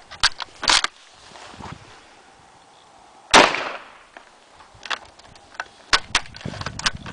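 A single shot from a Czech bolt-action Mauser rifle firing 7.92x57mm ammunition about three seconds in, with a short ringing tail. Sharp metallic clicks at the start and again over the last two seconds, from the bolt being worked.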